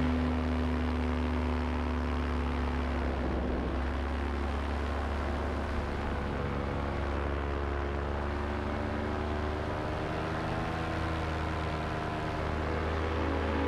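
Paramotor engine and propeller running steadily in flight; the engine note rises slightly near the end.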